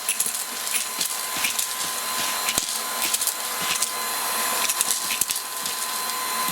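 Aposen H250 cordless stick vacuum running with a steady whine, with Lego bricks clicking and rattling as they are sucked up into the dust bin.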